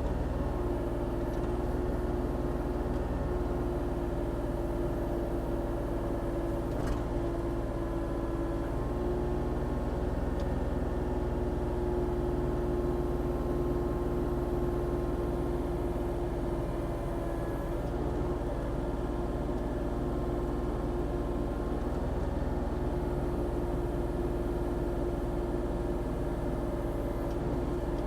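Volvo ECR40D compact excavator's diesel engine running steadily at working revs while digging, a constant pitched hum over a low rumble.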